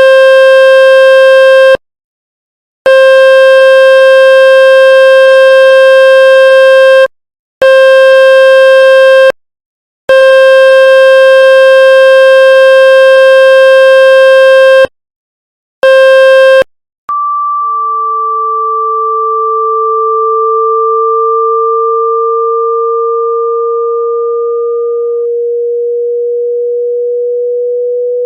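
Generated test tones for shaking water out of a wet phone speaker. A harsh buzzing tone full of overtones is switched on and off in uneven stretches. About seventeen seconds in it gives way to two pure steady tones, a high one and a lower one that slowly rises in pitch; the high one stops about eight seconds later.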